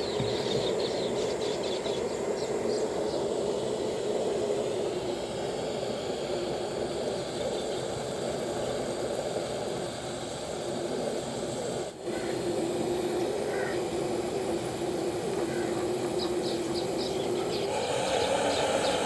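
Gas burner running with a steady roar under a griddle on which a lump of alum is melting.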